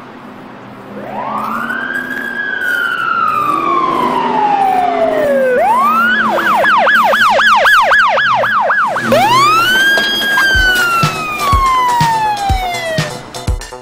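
Siren with a slow wail that rises and then falls, switching to a fast yelp of about four cycles a second, then back to a wail. A dance-music kick drum starts thumping about twice a second near the end.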